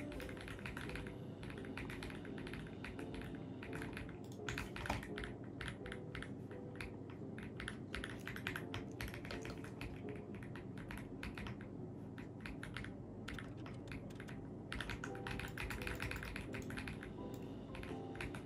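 Typing on an AULA F75 mechanical keyboard: a fast, continuous run of key clicks, with a short lull about three-quarters of the way through.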